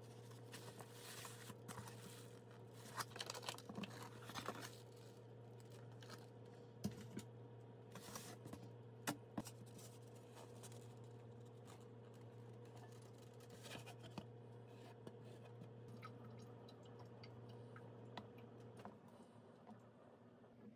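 Faint rustling and light clicks of a plastic bag and a styrofoam takeout box being handled, with a few sharper taps scattered through, over a steady low hum that stops near the end.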